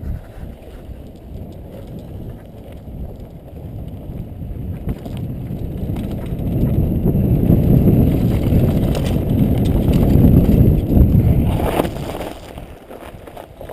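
Mountain bike rolling fast downhill on a dirt trail: wind rumbling on a helmet-mounted camera microphone, with tyre noise and rattling from the bike. The rumble grows louder through the middle and eases near the end.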